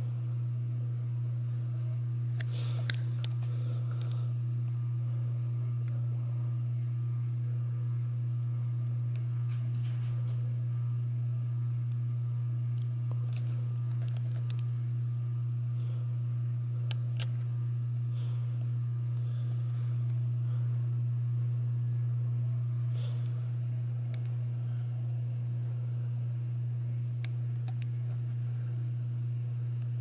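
Ceiling fan running with a steady low electrical hum from its motor, with a few faint clicks here and there.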